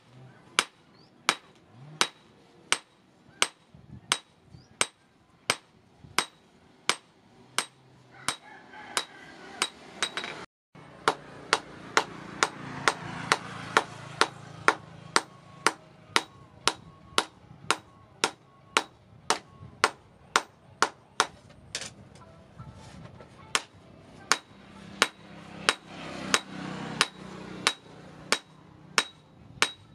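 Hand hammer striking red-hot leaf-spring steel on a small steel stake anvil, hand-forging a blade: steady, evenly paced blows of about three every two seconds, each with a short metallic ring.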